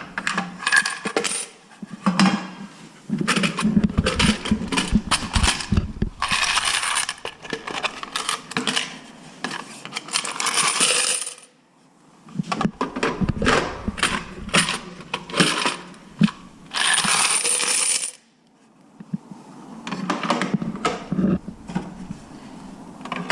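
Quarters from candy vending machines' coin boxes clinking and clattering as they are collected, with longer spells of jingling coins pouring about six, ten and seventeen seconds in.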